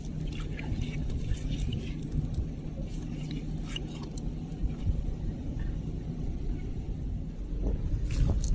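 A steady low rumble with a faint hum runs throughout. Over it come scattered light clicks and scrapes as a gloved hand picks up and handles a rough, shell-encrusted rock on wet beach sand.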